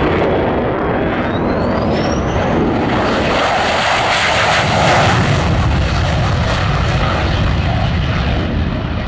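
Single-engine turbofan of an F-16 Fighting Falcon jet fighter making a low, fast pass. The jet's roar builds to its loudest about four to five seconds in, then holds strong as it climbs away. A thin rising whine is heard a second or two in.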